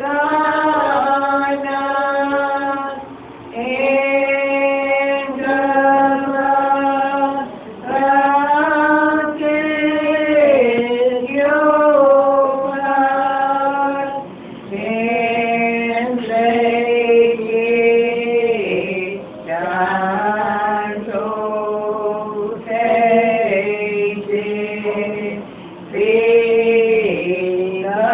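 A church congregation of men's and women's voices singing a slow hymn together. The long held notes come in phrases a few seconds long, with short pauses for breath between them.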